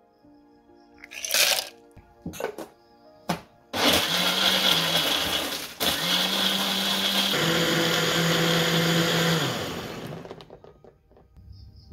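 A few short clattering knocks, then a countertop blender motor starts about four seconds in, crushing ice with dragon fruit and milk. It cuts out for an instant and picks up again, shifts pitch partway through as the mix smooths out, and winds down near the end.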